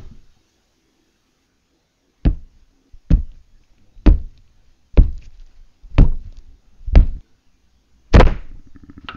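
Manual typewriter keys struck slowly one at a time: six sharp knocks about a second apart after a short quiet, then a louder, longer one near the end.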